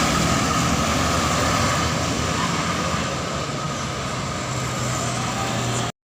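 Passing bus with its diesel engine running and road noise, a steady drone with no horn melody; it cuts off suddenly near the end.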